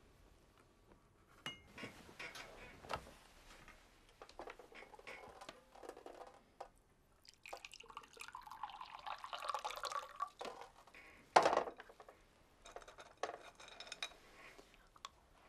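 Glassware and dishes being handled, with small clinks and knocks, then liquid poured into a glass for about two seconds. A single sharp knock, the loudest sound, comes soon after.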